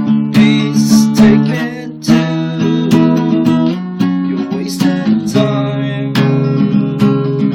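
Acoustic guitar strumming chords, the chord changing about every two seconds.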